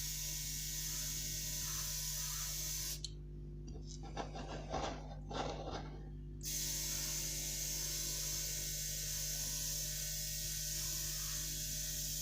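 Airbrush spraying candy gold paint in a first tack coat: a steady hiss of air over a low electrical hum. About three seconds in the high hiss drops away for a few seconds, during which a few short spray bursts are heard.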